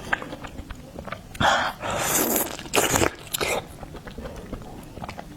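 Close-miked eating of steamed oysters: wet chewing and mouth sounds. A few louder wet bursts come between about one and a half and three and a half seconds in, with small smacks and clicks around them.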